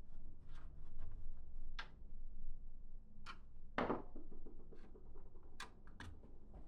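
Handling noise: scattered sharp clicks and light knocks, six or so, as small hard parts are moved and set down, over a low rumble.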